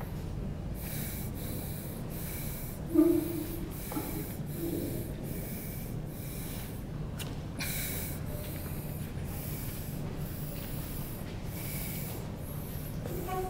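Repeated rhythmic scratchy rubbing strokes, about one and a half a second, over a steady low hum. Two short low tones sound about three and four and a half seconds in.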